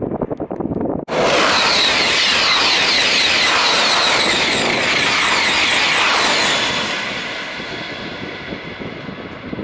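OUIGO TGV high-speed train passing close at speed: a loud rush of air and wheel-on-rail noise that starts abruptly about a second in, with a rapid repeating clatter as the bogies go by. It tails off over the last few seconds. Before it, wind on the microphone.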